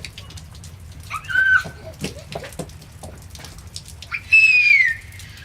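A toddler squeals twice, a short high cry about a second in and a longer, louder falling one near the end, over a steady patter of water drops.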